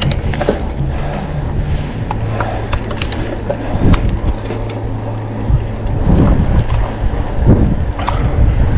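Wind buffeting the microphone of a camera on a moving mountain bike, a steady low rumble with tyre noise and scattered sharp clicks and rattles from the bike.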